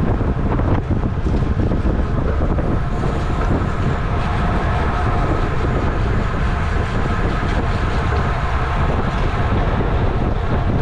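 Wind rushing over the camera's microphone on a racing bicycle at about 25 mph, over a steady road rumble.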